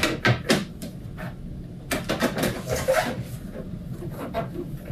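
A string of light knocks and clicks as things are handled and moved about while a boxed set of puzzle sorting trays is fetched.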